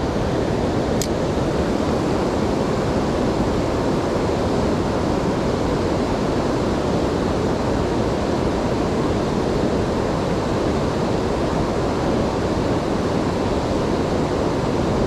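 Water pouring over a river weir: a steady, even rushing, with a faint brief tick about a second in.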